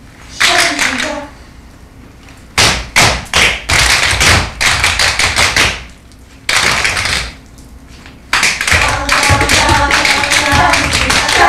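Group tap dancing: tap shoes striking a stage floor in short bursts of quick taps separated by pauses, then dense, continuous tapping from about eight seconds in.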